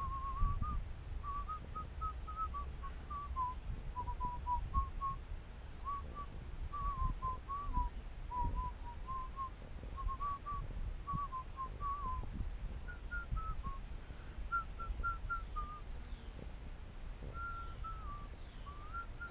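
A man whistling a tune, a long run of short notes moving up and down around one middle pitch, over a steady low rumble.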